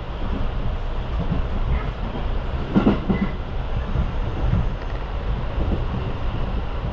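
Running noise inside a moving electric train: a steady rumble of wheels on the rails, with a brief louder clatter about three seconds in.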